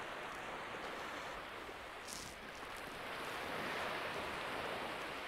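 Small waves breaking and washing up a sandy beach, the surf noise swelling and easing twice, with a brief high hiss about two seconds in.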